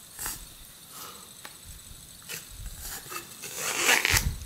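Handling noise as a mirror-finish bumper frame is pressed onto a Lenovo Vibe Shot smartphone by hand: a few faint clicks, then a louder scrape and a thump near the end as the frame goes on.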